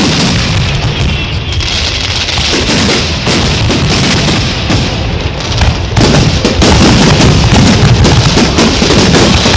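A dense fireworks barrage: overlapping booms and crackling bursts with no gaps between them. It grows louder about six seconds in.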